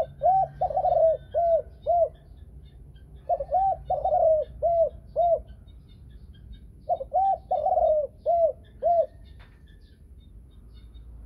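Thai-line spotted dove hen cooing three phrases, each a quick run of arched notes that ends in two short separate notes, the clear two-note ending of the 'thổ sấm' voice.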